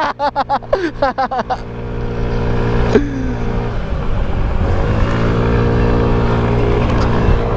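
Moped horn tapped in a rapid string of short honks for the first second and a half, then the moped's small engine running steadily under throttle, its note dropping briefly about three seconds in and climbing back.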